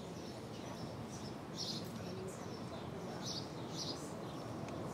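Birds chirping: repeated short, high chirps over a steady background hum.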